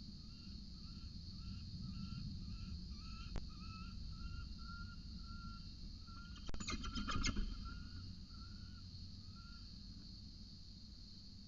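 A steady high insect drone, typical of a cicada chorus, under a run of short, evenly repeated bird call notes, two to three a second, that stop near the end. A burst of scratchy clicks and rustling about six and a half seconds in is the loudest sound.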